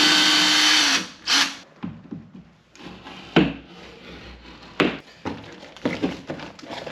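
Cordless drill backing a drywall screw out of a wall stud: the drill motor runs at a steady pitch for about a second and stops. Scattered knocks and thunks of wood and drywall being handled follow.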